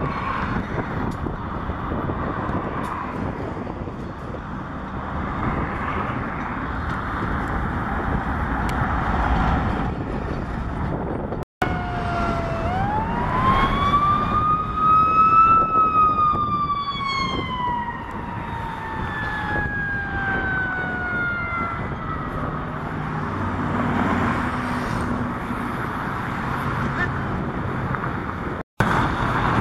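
An emergency vehicle siren winding up in pitch over about three seconds, then slowly falling away over about six more, heard over a steady background rumble of engines and traffic.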